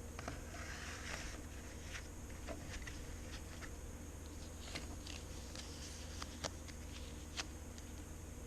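A mechanical pencil being handled: scattered light clicks, with a brief rustle about a second in.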